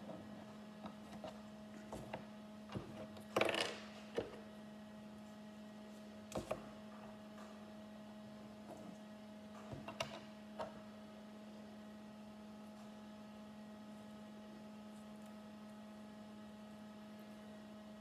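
Small plastic clicks and taps of Lego minifigure pieces being handled and pressed together on a wooden table, with one short louder scrape about three and a half seconds in. The clicks stop after about eleven seconds. A steady electrical hum runs underneath.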